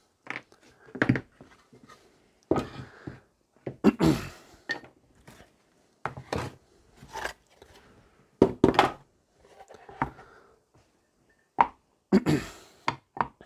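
Wooden pieces and a sharpening stone handled and set down on a plywood benchtop: about a dozen irregular wooden knocks and thunks, with short pauses between them.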